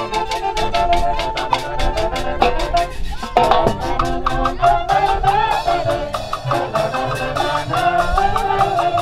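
Andean village orchestra playing a lively dance tune for the Pallas dancers: a melody on wind instruments over a quick, steady beat of about four strokes a second.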